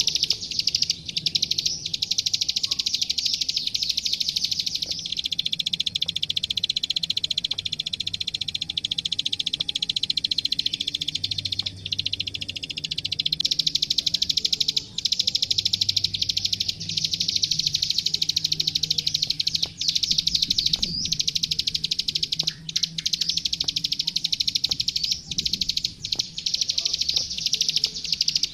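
Klik klik (ciblek sawah, the plain prinia) singing a continuous, very rapid high-pitched clicking trill, the full 'gacor' song used as a masteran recording. There are brief breaks about twelve and fifteen seconds in.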